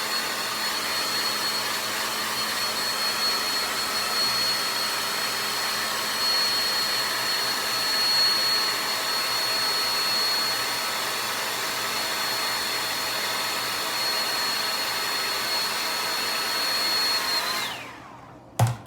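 Handheld blow dryer running steadily with a high motor whine, drying the glued lace of a wig. It switches off near the end, the whine falling as the motor spins down, and a short knock follows.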